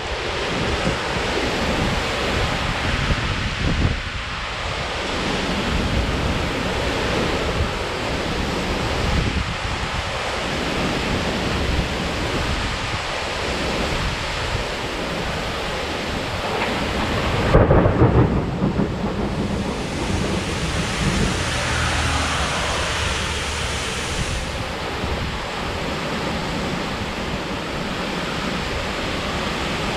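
Heavy rain pouring in a severe thunderstorm, with wind gusting, steady throughout; a loud burst rises out of it a little past the middle.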